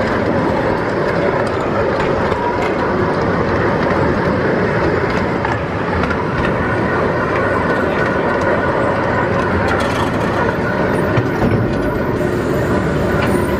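Small park ride train running along its track, heard from an open passenger car: a steady rumble of wheels on the rails with faint clicks.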